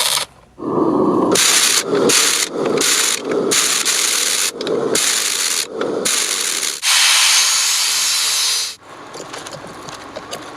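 Rough abrasive rubbing in short strokes, about one every two-thirds of a second, then one longer stroke of about two seconds, followed by fainter rubbing near the end.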